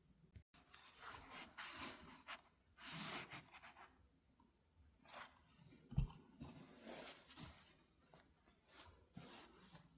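Hand sewing: a needle and thread drawn again and again through quilted cotton fabric, soft scratchy rustles, with a single soft knock about six seconds in.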